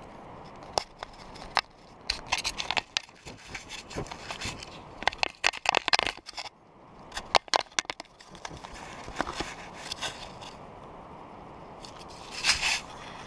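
A marmot licking and nuzzling a GoPro camera's housing close up, its mouth and fur scraping against it. The result is irregular clusters of sharp clicks, crackles and scrapes, loudest near the middle and again near the end.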